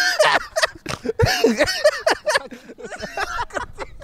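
Two men laughing hard in loud, uneven bursts of voice.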